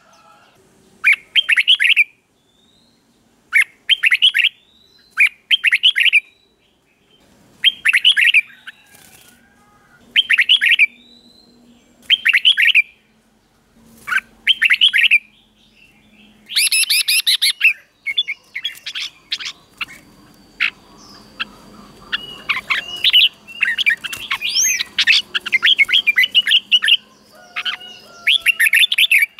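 Red-whiskered bulbul singing: short bright phrases repeated about every second and a half, then from about halfway a denser, quicker run of chattering notes.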